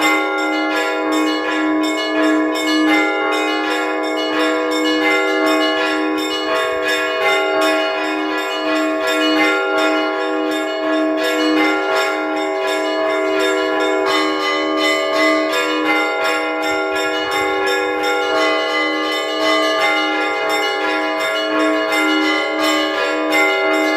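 Orthodox church bells rung by hand by a bell ringer: several bells of different pitch struck in quick rhythm over a steady beat on a lower bell, their tones ringing on and overlapping. This is the peal that calls parishioners to prayer.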